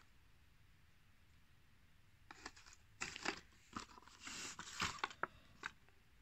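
Plastic blister packs on cardboard cards, holding die-cast toy cars, crinkling and crackling as they are handled. The handling comes as a run of short crackles starting a couple of seconds in.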